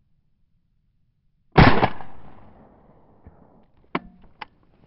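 A single suppressed rifle shot from an AR-15 fitted with a SureFire RC2 suppressor, about a second and a half in, with a trailing echo that dies away over about a second. Two short sharp clicks follow near the end.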